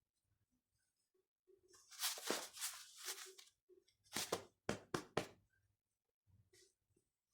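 Handling noises: a rustle, then about four sharp knocks or clicks of small objects being handled or set down.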